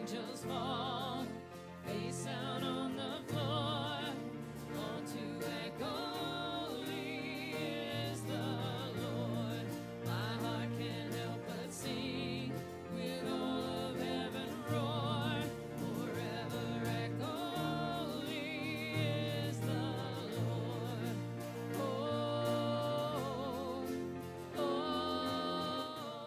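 Live worship band playing a song: a woman singing with vibrato over acoustic guitar, bass guitar and drums.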